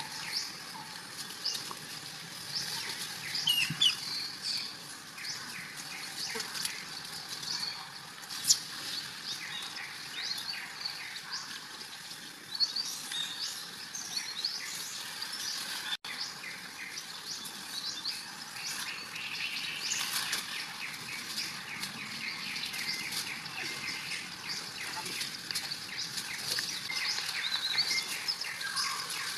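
Outdoor forest ambience of many small birds chirping, short high chirps coming thick and fast, with one sharp click about eight seconds in.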